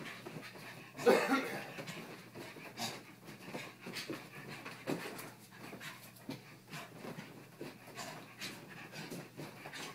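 A puppy panting in quick, irregular puffs as it plays, with a louder burst of sound about a second in.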